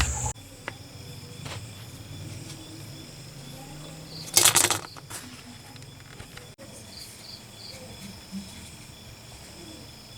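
Steady faint chirring of insects, with a single loud hiss lasting about half a second around four and a half seconds in.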